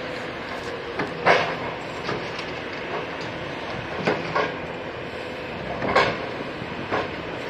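Demolition excavator running steadily while its hydraulic concrete crusher works through concrete rubble and rebar, with several sharp cracks and clanks. The loudest come about a second in and near six seconds, with more around four seconds and near seven.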